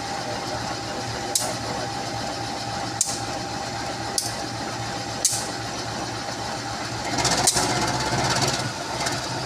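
Train's diesel engine running steadily, with single sharp clicks every second or so and a louder stretch of noise about seven seconds in.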